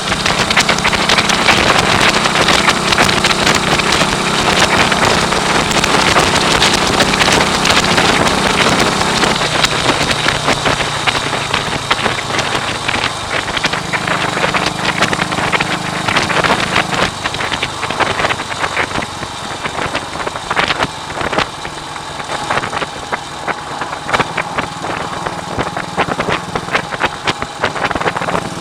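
1939 AJS Model 22's 250 cc single-cylinder engine running, its pitch shifting up and down a few times with the revs, under a heavy hiss of wind on the microphone.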